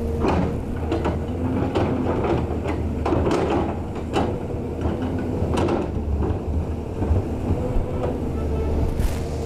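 Caterpillar 320C L hydraulic excavator's diesel engine running with a steady low hum while its bucket scrapes and knocks against a soil-and-rock slope, with several sharp clunks and scrapes spread through.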